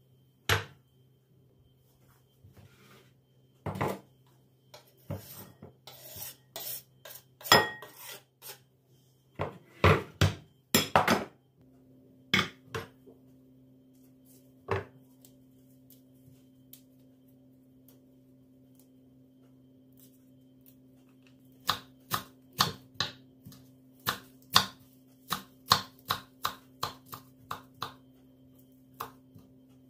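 Kitchen work at the counter: irregular knocks and clinks of utensils and dishes, then, about two-thirds of the way in, a run of even knife strokes on a cutting board at about two a second. A low steady hum sits underneath and shifts in tone a little before halfway.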